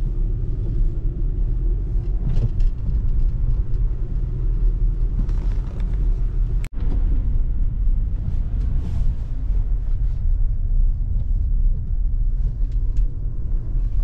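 Steady low rumble of a car's engine and tyres heard from inside the cabin while driving on a snow-covered road, with a momentary cut-out about halfway through.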